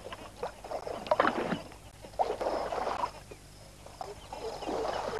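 Water sloshing and splashing in repeated surges, every second or so, as a tiger wades through a lake covered in floating water plants.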